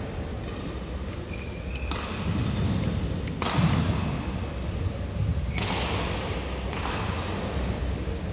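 Badminton racket strikes on a shuttlecock during a rally: four sharp hits about one to two seconds apart, each followed by echo from the large hall.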